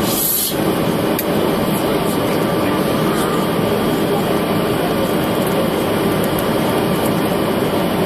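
Steady cabin noise inside a Tupolev Tu-204 airliner on final approach: the rush of airflow over the fuselage and the drone of its two PS-90A turbofan engines. A brief hiss comes right at the start.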